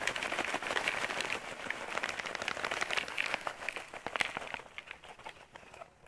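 Dry compost and wood-chip mix pouring out of a plastic refill bag into a plastic bucket, with the bag crinkling: a dense rustling patter of small ticks that thins out after about four and a half seconds as the bag empties.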